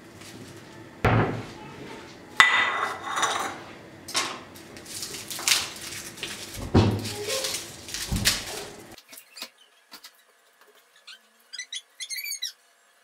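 A head of garlic is broken apart and the cloves peeled by hand over a ceramic plate on a stone counter: dry, papery skins crackle, with a few knocks and a ringing clink, likely the plate being set down, about two seconds in. After about nine seconds it goes almost quiet, with a few faint high chirps near the end.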